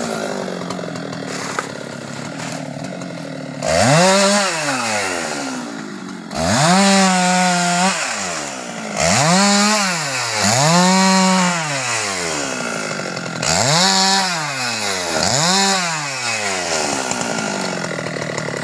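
Husqvarna 390XP two-stroke chainsaw idling and revving up six times in short bursts of about a second each, dropping back to idle between them, while working on the limbs of a felled teak tree.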